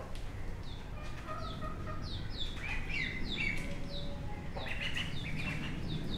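Young poultry, chicks and ducklings, peeping over and over: short, high peeps that fall in pitch, several a second, with a few lower calls in between around the middle.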